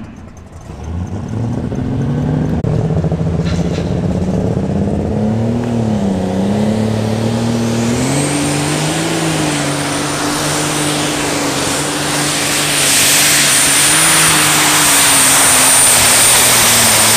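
Case IH light super stock pulling tractor's turbocharged diesel engine running hard under load, its pitch dipping and climbing. A steady high-pitched whine joins about halfway, and the engine grows louder in the last few seconds.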